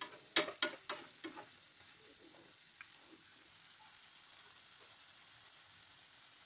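A utensil knocking and scraping in a frying pan of cooked chicken: five or six sharp clinks in the first second and a half, then only a faint steady hiss.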